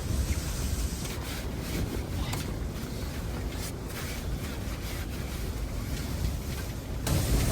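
Blizzard wind blowing hard and buffeting the microphone with a low rumble. The sound changes suddenly about seven seconds in, becoming louder and hissier.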